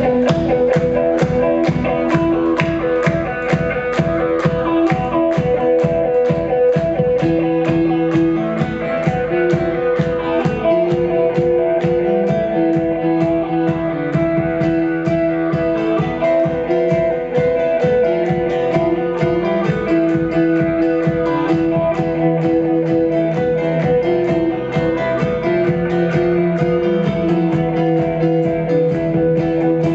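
Live band playing an instrumental intro: guitar notes held over a steady, fast pulse, with no singing.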